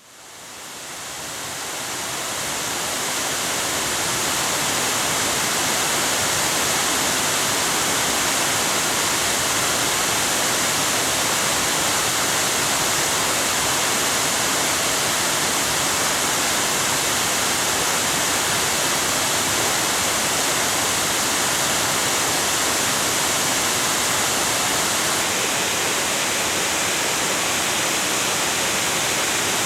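A 50-foot waterfall: a steady, dense rush of falling water that fades in over the first few seconds and then holds even.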